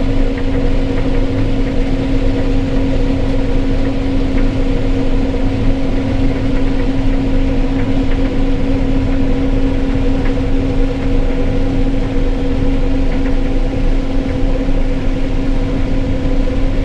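Case IH Axial-Flow combine harvester running steadily: a constant mechanical hum with a low rumble underneath.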